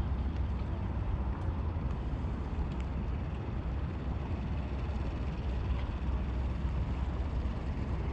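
Steady low wind rumble on the microphone, with a few faint ticks.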